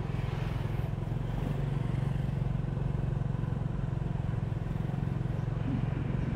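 Motorbike engine running steadily while riding, a low even drone with traffic and wind noise around it.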